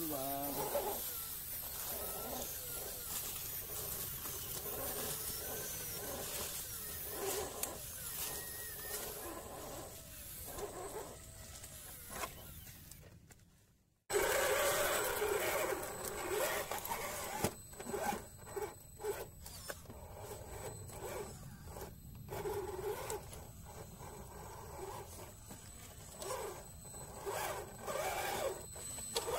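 Scale RC crawler truck's small electric motor and gear drive whining, rising and falling in pitch with the throttle, with the tyres scraping and crunching through loose dirt. The sound fades out just before halfway and comes back louder after a cut.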